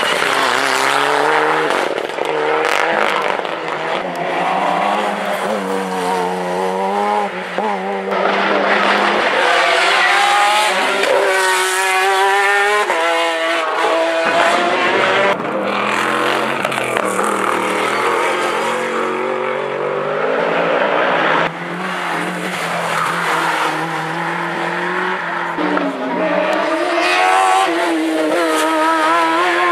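Hillclimb race car engine revving hard through the gears, its pitch climbing and dropping again at each shift.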